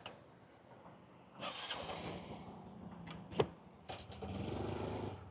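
A motorcycle engine starting up about a second and a half in, then running, with a few sharp clicks in between, the loudest about three and a half seconds in.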